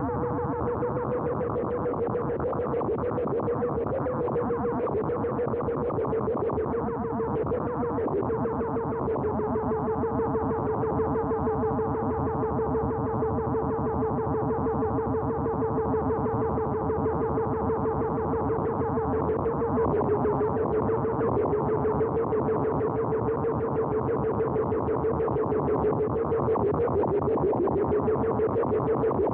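Experimental electronic film soundtrack: a distorted, fast-pulsing drone over one steady held tone, with no breaks, growing a little louder near the end.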